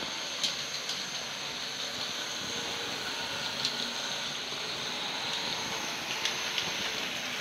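Model train running: a steady whirring hiss from the Athearn flywheel locomotives and their streamliner cars rolling on the track, with a few light clicks scattered through it.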